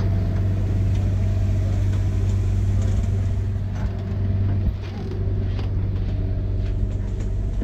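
Steady low machine hum with a few fainter steady tones above it, dropping a little in level a little over halfway through. A few light knocks of footsteps on the motorhome's entry steps.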